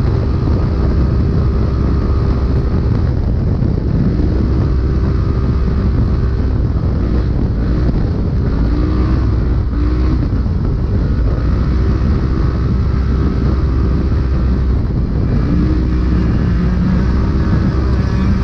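Polaris RZR race UTV heard from inside the cab at speed: the engine's pitch rises and falls several times with the throttle over a constant heavy low rumble.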